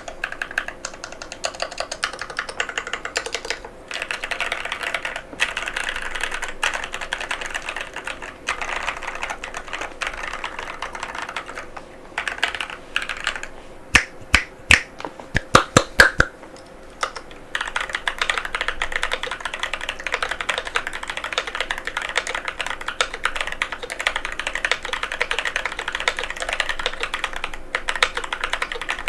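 Fast continuous typing on a NovelKeys NK87 aluminum mechanical keyboard with Durock White Lotus tactile switches, the keystrokes coming in quick runs with short pauses. About halfway through, a handful of much louder, sharper clacks stand out above the typing.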